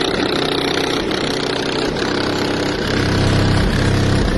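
DS18 EXL subwoofers, powered by a CT Sounds Team 3000 amplifier, play bass-heavy music loudly. A heavier, louder bass comes in about three seconds in.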